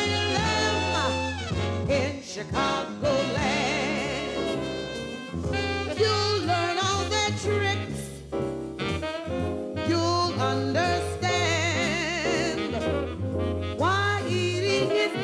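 Jazzy, swing-style theme song with singing and brass over a steady bass line.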